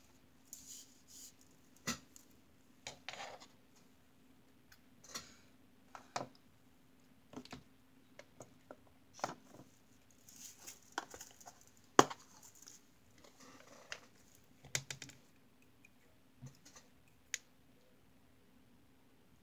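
Irregular clicks, taps and brief rustles from small nail-art supplies being handled on a work mat: plastic jars and containers picked up, opened and set down. The sharpest click comes about twelve seconds in.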